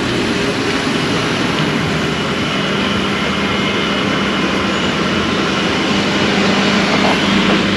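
Steady engine drone, with an even hum that sets in a couple of seconds in and holds one pitch.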